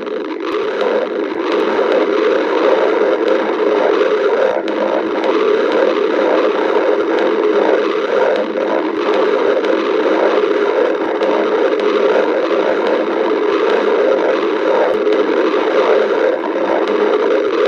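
A person's stomach growling in one long continuous rumble that does not let up.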